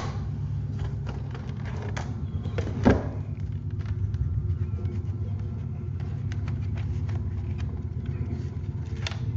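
Plastic CD jewel cases clicking and knocking against each other as the stack in the box is sorted by hand, with one sharper knock about three seconds in, over a steady low hum.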